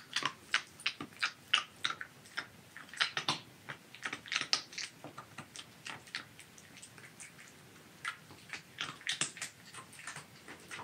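A silver fox chewing and crunching hard, cold pieces of pear: irregular crisp crunches, several a second, coming in bunches with short pauses between.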